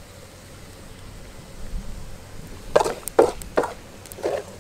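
A spatula knocking four times in quick succession against a wok and a wooden serving plate as a stir-fried frog dish is dished out, starting about three seconds in.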